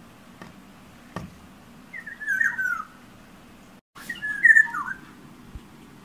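Black-naped oriole giving two short, fluty whistled phrases of gliding notes about two seconds apart, the second one louder. A single light tap comes about a second in, before the first phrase.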